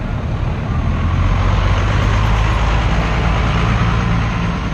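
Pickup truck driving slowly past close by: a low, steady engine note with exhaust and road noise, growing louder about a second in and easing off slightly near the end.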